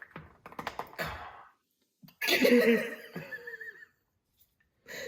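A person sniffing and breathing hard through the nose in short bursts, then a loud strained wavering vocal sound lasting about a second and a half: holding back an urge to sneeze, without sneezing.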